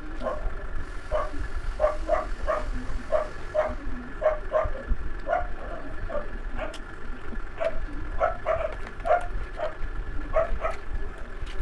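A dog barking repeatedly in short, high yips, about two a second with brief pauses, over a steady low hum.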